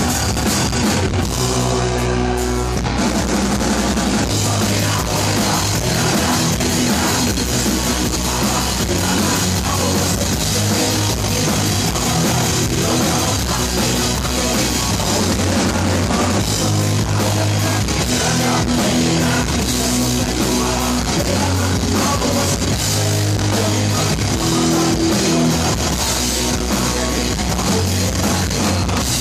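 Heavy metal band playing live: distorted electric guitar and drum kit at full, steady loudness.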